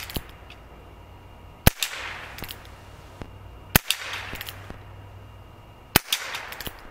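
Three quiet shots from a Heritage Rough Rider .22 revolver firing Aguila Colibri primer-powered rounds, about two seconds apart, each a sharp crack with a short hissy tail and a few fainter clicks after.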